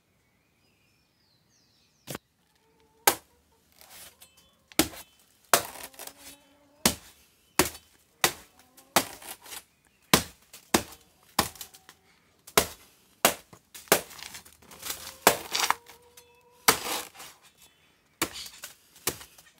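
A blade chopping into the soft, fibrous pseudostem of a banana plant to fell it for harvest: a run of sharp strikes, roughly one a second, starting about two seconds in, some with a brief ring.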